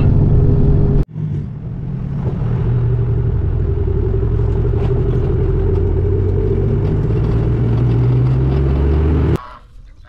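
Pickup truck on the road: engine and road rumble in the cab, then after a break about a second in, the same kind of steady engine and road noise heard out on the open flatbed deck, the engine note climbing slowly. It cuts off suddenly shortly before the end.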